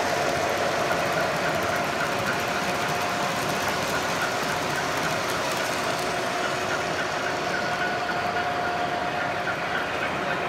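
O-gauge model freight train rolling steadily past on the layout's track: continuous rumble and clatter of metal wheels on the rails, with a faint steady whine running underneath.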